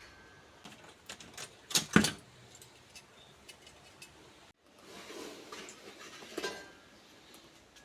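Sheet-metal parts of an old PC case clattering and clanking as they are handled, with a loud double clank about two seconds in and scraping and knocking later on.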